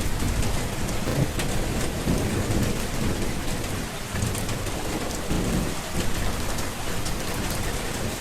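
Steady rain falling, with low rumbles of thunder that swell and fade twice.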